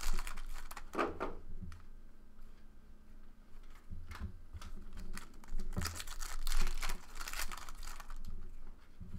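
Trading cards being handled and flipped, with a pack's wrapper crinkling and tearing in two spells of rustling: one at the start and one around six seconds in, with small card taps in between.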